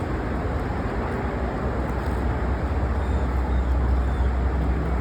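A motor vehicle's engine running with a low, steady rumble that grows stronger in the middle and eases near the end, over a wash of traffic noise.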